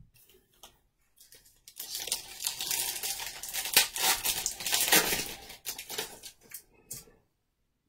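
A baseball trading card pack wrapper being torn open and crinkled: a rush of rustling and crackling starts about two seconds in, lasts a few seconds, then dwindles to a few small crackles and stops.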